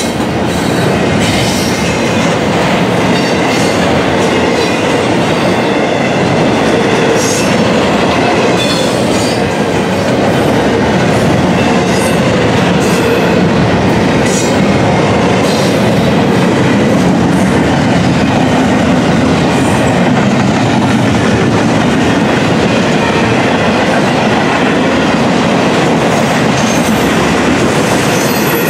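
Double-stack intermodal container well cars rolling past at speed: a loud, steady rumble of steel wheels on rail with scattered clicking over the rail joints.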